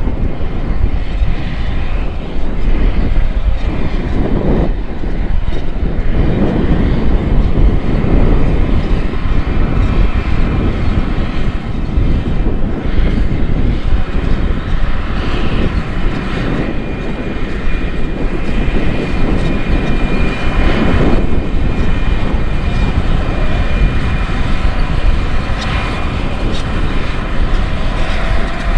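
Case IH Magnum 400 tractor's six-cylinder diesel engine running steadily under load, pulling a no-till air drill through corn stubble. A faint steady high whine shows over the engine through the middle.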